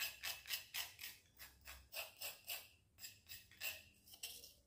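Spoon scraping ground cracker crumbs out of a stone mortar: a quick run of short scrapes, about four or five a second.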